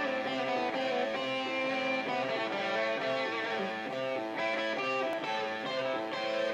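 Live rock music: an electric guitar plays the instrumental intro, chords and notes changing about every half second, with no singing.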